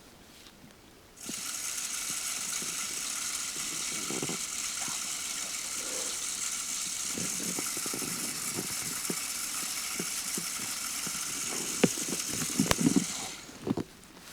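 Timed spin-cast game feeder going off: its motor whirs steadily for about twelve seconds, flinging corn with scattered rattles and ticks, then stops abruptly near the end.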